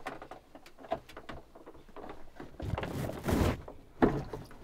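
Clicks and knocks of an RV toilet's flush handle being worked, with a short rushing noise about three seconds in.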